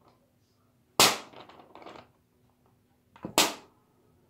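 A pen struck hard against a sheet of paper, giving two sharp cracks about two and a half seconds apart, the second with a small click just before it: a foley trick imitating gunshots.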